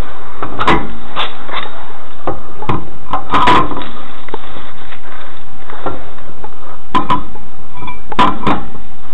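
Steel wheel with a snow tyre being fitted onto a car's hub: irregular metal knocks and clunks as the rim bumps against the hub and wheel studs. The loudest knocks come about three and a half seconds in and again near the end.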